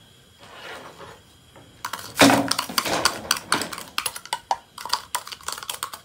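Kitchen things being handled on a wooden table: a spoon clinking and scraping against plastic cups and containers, quiet at first, then a dense run of sharp clicks and clinks from about two seconds in.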